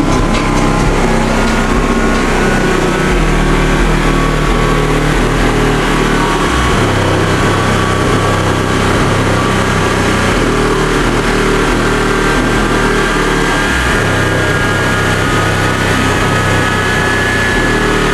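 Loud, bass-heavy music played through a car stereo's subwoofers and heard from outside the car. The deep bass notes shift every second or two.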